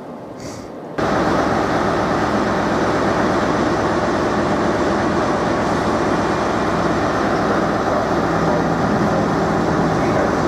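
Class 43 HST power car's diesel engine running loud and steady close by, with a constant low hum. In the first second there is only a quieter train rumble, and then the engine noise comes in suddenly.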